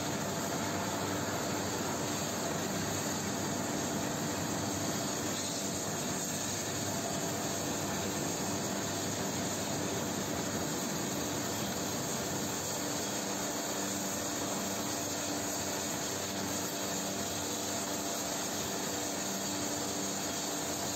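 Steady industrial roar at a steel furnace where molten metal is flowing, with a faint steady hum underneath.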